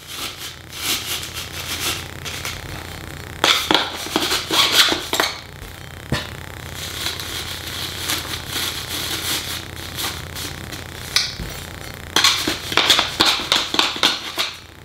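Stainless steel pot scrubbers scratching and crinkling against the inside of a PVC pipe as they are stuffed in by hand and pushed down with a file. The scraping comes in uneven spells, loudest about four seconds in and again near the end.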